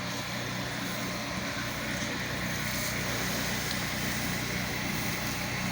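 Pressure washer running steadily, its motor giving an even drone under a constant hiss of spray.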